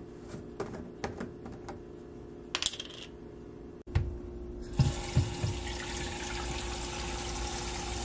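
Kitchen faucet running into a Brita filter pitcher, a steady splashing hiss that starts about halfway through. Before it there are light clicks and a bright clink from a plastic water container being handled.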